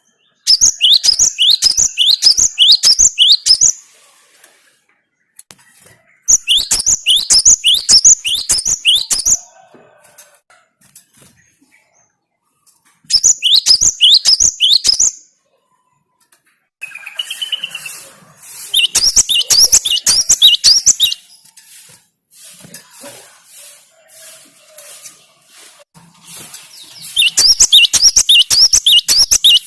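Cinereous tit (gelatik batu) singing: five bursts of quick, sharp down-slurred whistled notes, each a few seconds long, separated by short pauses.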